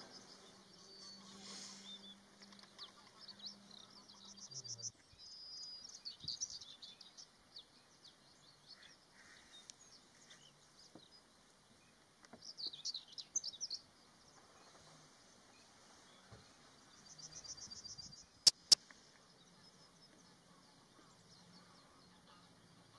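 Small songbirds singing and twittering in short bursts of high chirps and quick trills, over a faint low hum for the first few seconds. Two sharp clicks a split second apart, about three-quarters of the way through, are the loudest sounds.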